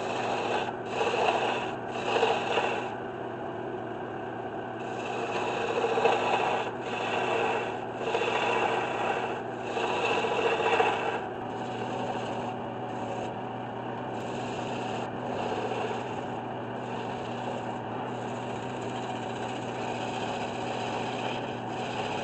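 Wood lathe running with a steady hum while a turning gouge cuts the outside of a spinning black walnut blank. The cut swells in repeated strokes about once a second for the first half, then settles into steadier, lighter cutting.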